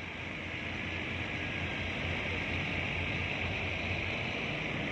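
Scania P460 XT dump truck's diesel engine running with a low, even throb as the truck moves slowly off the landing craft's ramp, under a steady hiss.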